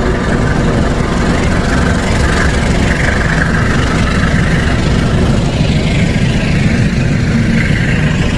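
Bima executive-class passenger train pulling slowly past on the adjacent track: a steady low rumble.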